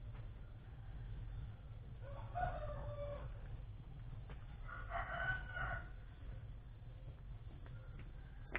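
A rooster crowing twice, about two seconds in and again, louder, around five seconds in, over a steady low rumble.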